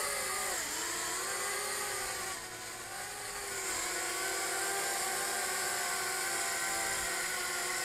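JJRC H37 Elfie pocket quadcopter's small motors and propellers whining in flight, the pitch dipping briefly about a second in and then holding steady.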